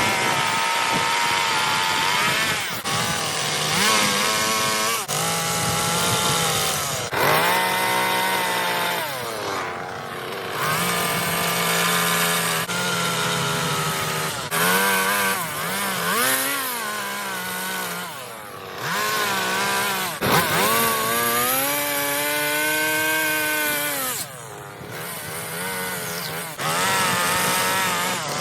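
Chainsaw carving into wood, its engine pitch repeatedly rising and falling as the throttle is opened and eased and the chain bites into the cut.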